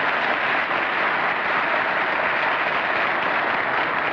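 Studio audience applauding, a steady, dense clapping.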